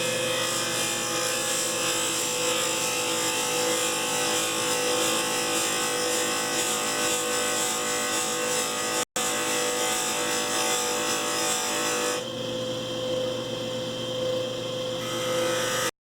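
Wood lathe running with a steady motor hum while a turning tool cuts the spinning wood, giving a continuous scraping hiss; about twelve seconds in, the scraping thins for a few seconds, leaving mostly the lathe's hum, then picks up again.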